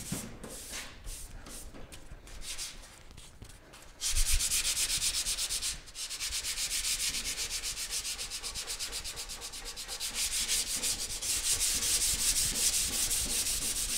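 Sandpaper rubbed by hand in quick back-and-forth strokes over a primed metal car dash, cutting back the primer and its guide coat. The strokes are softer at first and get louder and more continuous from about four seconds in, at roughly four strokes a second.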